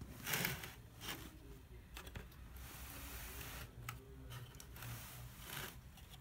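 Handling noise from a handheld recording: soft rustles, scrapes and small knocks, the loudest about half a second in, over a faint low hum.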